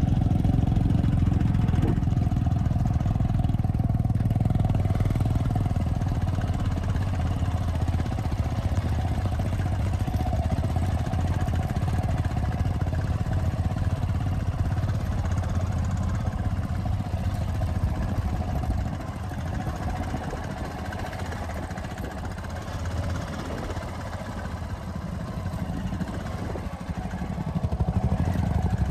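A vehicle engine runs steadily with a low rumble. It grows quieter for several seconds past the middle, then louder again near the end.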